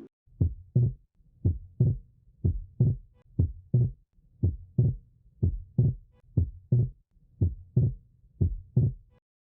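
Heart sounds: a steady series of about nine lub-dub pairs, roughly one a second, ending shortly before the end. The example for normal sounds, a first sound 'tum' followed by a split second sound 'trá', the physiological splitting of B2.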